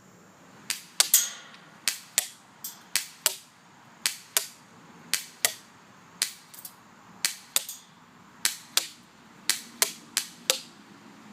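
Airsoft gun firing about twenty single shots, mostly in quick pairs about a third of a second apart, each a sharp crack.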